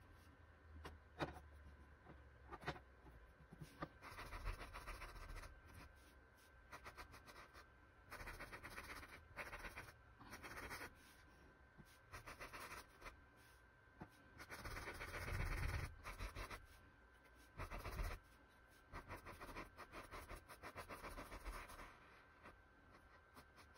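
Paintbrush scratching across a stretched canvas as it lays on acrylic paint, in short bursts of strokes with a few sharp taps in between.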